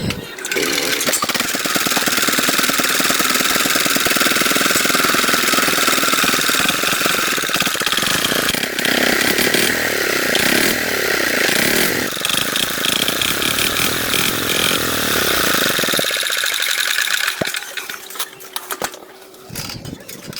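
A loud power tool running on metal with a rapid rattling drive, starting about half a second in and stopping near the end, followed by a few quieter knocks.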